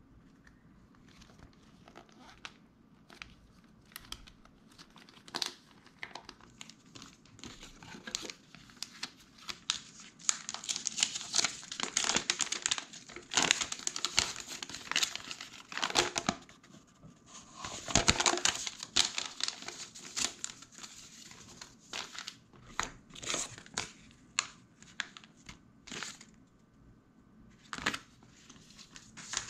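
Paper instruction leaflets and cards being handled and unfolded, rustling and crinkling in irregular bursts, with the busiest and loudest stretch through the middle.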